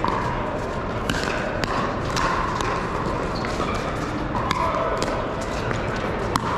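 Pickleball paddles striking a hard plastic pickleball in a fast rally: a series of sharp pops at irregular intervals, the loudest near the end, over the steady chatter and hits of many courts in a large hall.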